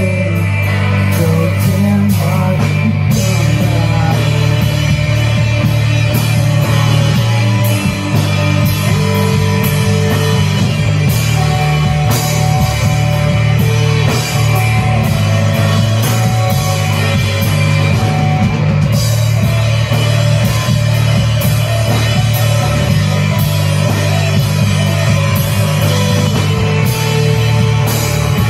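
Live rock band playing loud and without a break: electric guitars and a drum kit with cymbal hits, with heavy low notes underneath.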